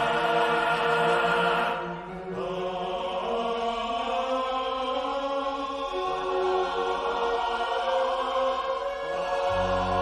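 Orchestral film score with a choir singing sustained chords. It dips briefly about two seconds in and swells with deep bass near the end.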